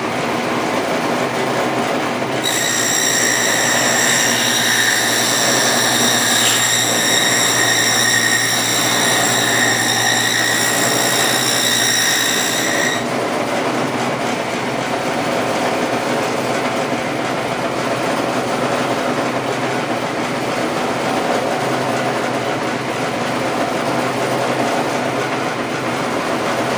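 Power saw running steadily while cutting rabbet joints into air-dried lumber for beehive box ends. A high-pitched whine sets in about two seconds in and cuts off sharply about halfway through, then the saw runs on without it.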